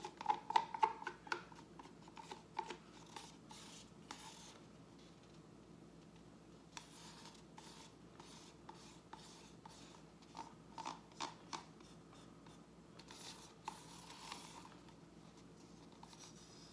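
A stir stick scraping and tapping inside a plastic cup as thick acrylic paint is scraped out, in several short bouts of small clicks and scrapes.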